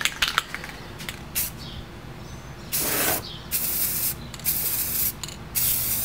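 Rust-Oleum Gloss Protective Enamel aerosol spray paint can spraying in four short hissing bursts, starting about halfway through. A few light clicks come before the first burst.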